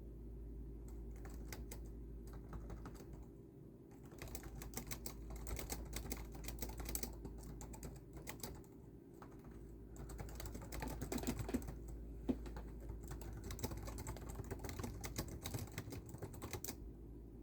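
Typing on a computer keyboard: a few scattered keystrokes at first, then fast runs of key clicks from about four seconds in, with a short pause, stopping near the end. A steady low hum runs underneath.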